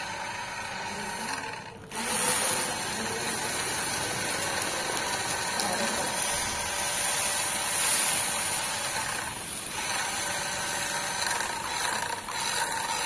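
Toy RC car's small electric drive motor and plastic gearbox whirring as it drives, starting about two seconds in, with brief drops near the end as the throttle is let off.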